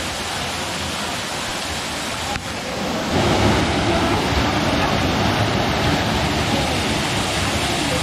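Waterfall pouring into a rock pool: a steady rush of falling water that grows louder and deeper about three seconds in, heard close to the falls.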